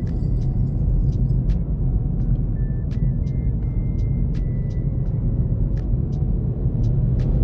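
Steady low engine and road rumble inside the cabin of a VW Golf 7 1.4 TSI driving at an even pace, with a few faint light ticks.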